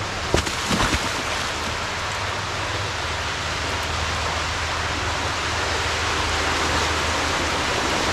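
Swollen creek water rushing steadily toward a concrete culvert, running high from heavy rain, with a couple of sharp knocks about half a second and a second in.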